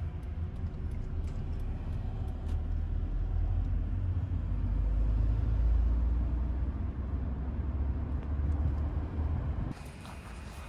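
Low rumble of a moving car heard from the back seat inside the cabin, swelling about halfway through. Near the end it cuts off abruptly to quieter outdoor ambience.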